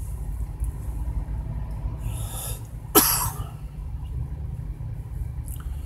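A man coughs once, sharply, about three seconds in, just after a short breath in, over a steady low rumble.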